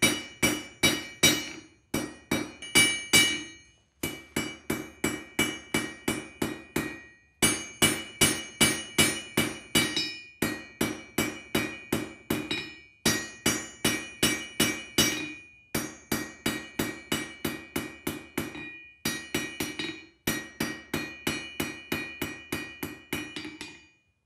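Blacksmith's hand hammer striking a hot iron bar on an anvil to draw it out into a handle. The blows come steadily, about three or four a second, each with a ringing note, in runs broken by short pauses.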